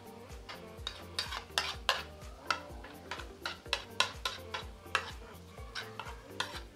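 A cooking utensil stirring and scraping in a pan in quick, irregular strokes, with a light sizzle, over background music with a steady beat.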